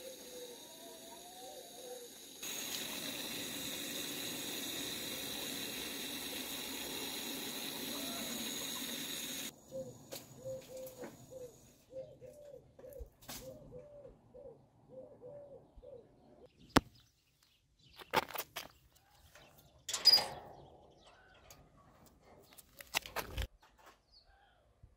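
Doves cooing softly, with a quick run of short repeated coos in the middle stretch. A steady rushing noise covers them for several seconds after about two seconds in, and a few sharp knocks come near the end, the loudest about twenty seconds in.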